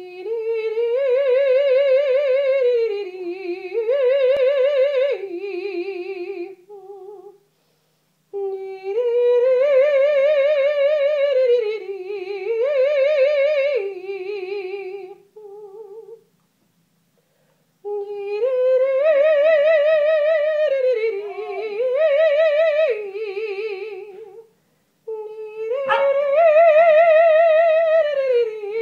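Operatic vocal warm-up: a trained singing voice with strong vibrato sings four phrases, each rising, holding, dropping and rising again, each pitched a little higher than the one before, with short pauses between.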